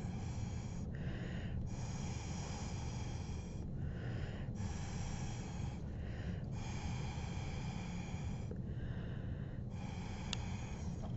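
Breath blown through a drinking straw to push wet watercolour paint across paper, in about five long puffs of a second or two each, with short breaths taken between them. A steady low hum runs underneath.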